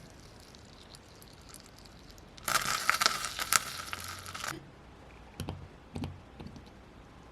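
Packaging being torn open for about two seconds, stopping suddenly, then two light knocks about half a second apart.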